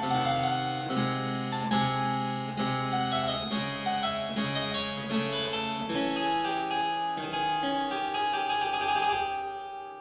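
Harpsichord playing a Baroque keyboard piece in plucked notes and chords. Near the end the playing stops and the sound dies away.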